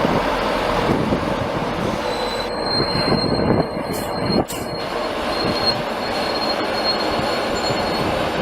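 Train running along the track at close range, a dense steady rumble of wheels on rail. About two and a half seconds in, a thin high-pitched squeal comes in and carries on, with a couple of sharp clicks a second or two later.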